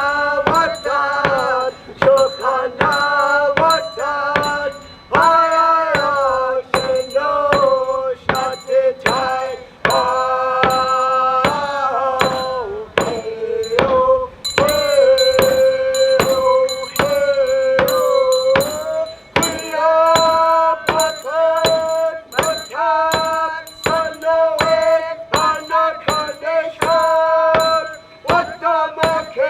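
A voice singing a chant-like song with long held notes over a steady struck beat, about two beats a second.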